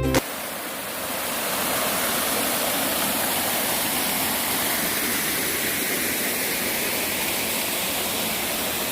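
Mountain valley stream rushing in a steady wash of water that grows a little louder in the first second or two.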